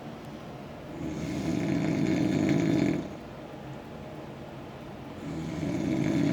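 Loud snoring: two long, coarse snores of about two seconds each, the first about a second in and the second near the end, with quieter breathing between.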